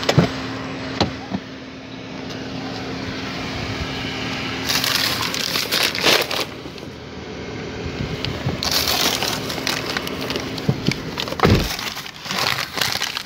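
Rustling and crinkling of a feed bag being handled inside a car, with scattered knocks, over a steady hum from the car. The crinkling comes in two spells, about five seconds in and again about nine seconds in.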